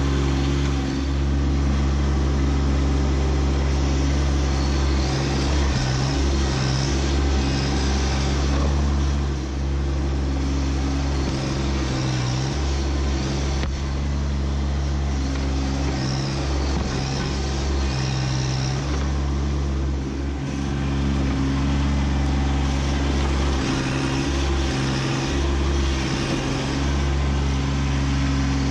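Kubota B2601 compact tractor's three-cylinder diesel engine running steadily while the tractor digs at a stump with its front loader, the engine note dipping briefly twice.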